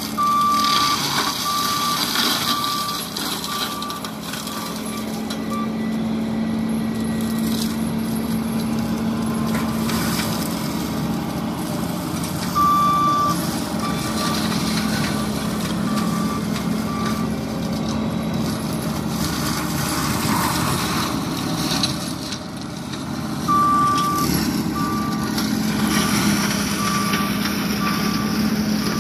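John Deere 333G compact track loader with an MH60C mulching head running with a steady drone, its back-up alarm sounding three times as it reverses. Each time the alarm gives one longer beep followed by shorter beeps, about two or three a second.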